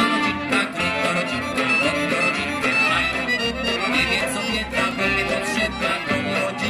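Live folk band playing an instrumental passage of a Warsaw street ballad: banjo and guitar strummed in a steady rhythm, with double bass and a melody line on top. The bass notes come in about three seconds in.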